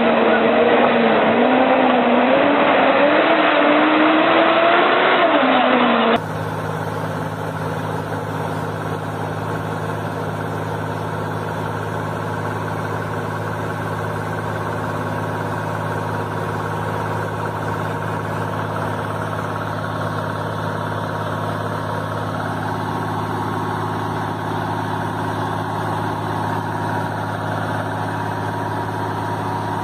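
A bus engine pulling through mud, its pitch wavering and rising. About six seconds in it cuts abruptly to the steady, even drone of Volvo FH diesel tanker trucks crawling slowly.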